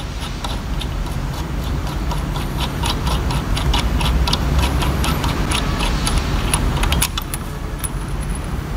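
A quick run of light metallic clicks, several a second and irregular, as the nozzle cap nut of a multi-hole diesel injector held in a vise is unscrewed, over a steady low workshop hum. The clicking mostly stops about seven seconds in.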